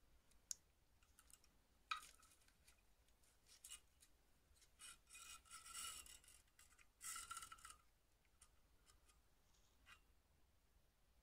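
Faint metallic clicks and scraping as the coil mainspring and spring guide of a VSR-10 airsoft rifle are slid out of its metal cylinder: sharp clicks near the start and about two seconds in, then two longer rasping scrapes around five to six and seven seconds in.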